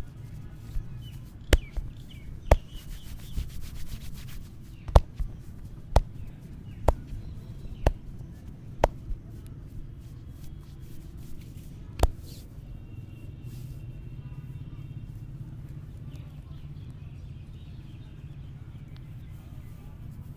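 Sharp slaps of hands on a body during a head and neck massage, about one a second, with a short flurry of quick taps, ending about twelve seconds in. Birds chirp faintly over a steady low rumble in the background.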